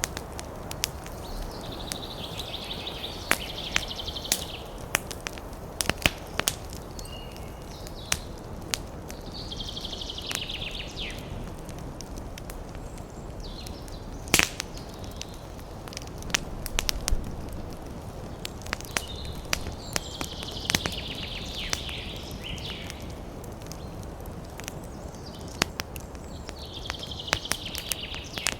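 Wood fire crackling, with irregular sharp pops over a low steady rush of burning; one pop about halfway through stands out louder. A high, fast trill comes in four times, each lasting a second or two.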